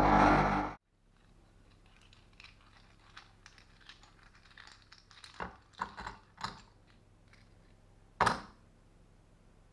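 Music cuts off abruptly about a second in. Scattered light clicks and taps follow, with a few louder knocks in the middle and one sharp knock near the end.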